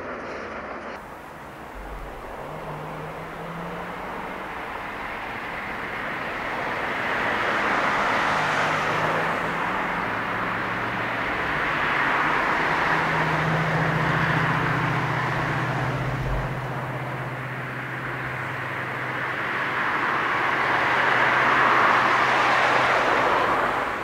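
Distant vehicle noise: a rumbling hum that swells and fades in slow waves, from the far-off train and road traffic.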